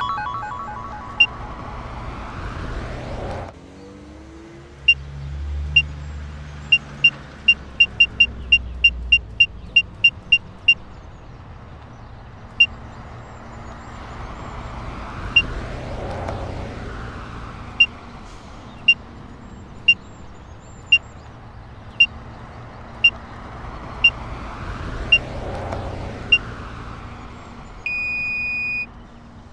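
Animation sound effects: a car driving by over the first few seconds with a low engine rumble just after, then a string of short, high ticks, bunched several a second around the eighth to tenth second and then coming about once a second, under two swelling whooshes. Near the end a steady electronic beep lasts about a second.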